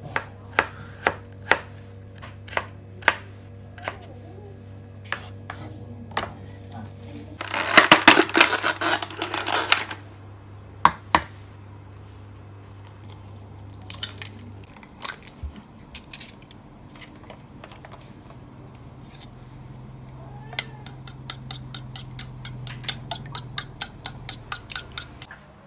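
A kitchen knife chopping a red onion on a wooden cutting board, one sharp knock about every half second. Then a loud noisy stretch of about two seconds, a few scattered knocks, and near the end wooden chopsticks beating eggs in a ceramic bowl, a quick run of small clicks.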